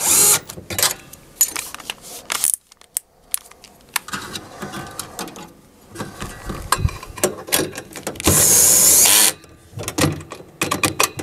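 Bosch cordless drill/driver running in short runs as it drives machine screws into nuts on a sheet-metal panel, with a longer run about 8 seconds in. Clicks and rattles of the screws, nuts and panel fall between the runs.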